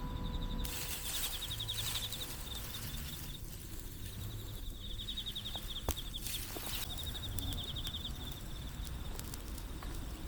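Insects chirping in repeated short, pulsing trills, with a few faint clicks in between.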